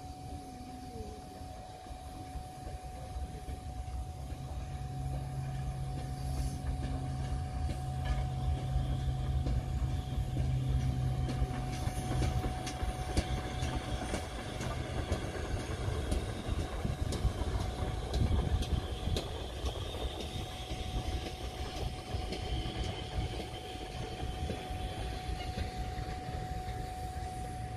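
A train running past on the rails. Its low rumble grows louder over the first ten seconds or so, and wheels click over the rail joints in the middle before the sound eases off slightly.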